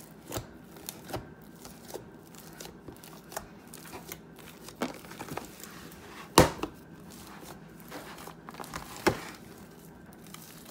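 Hands kneading and pressing a large mass of several homemade slimes mixed together, giving irregular crackling and popping, with the loudest pops about six and nine seconds in.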